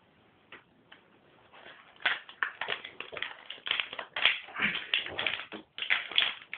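Crinkling and rustling of a plastic packet handled close up, starting faintly about a second in and growing into a dense, irregular crackle.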